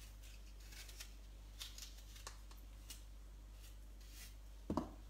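Small kitchen knife cutting and coring raw apples by hand: faint, crisp slicing strokes and scrapes, with a louder knock near the end.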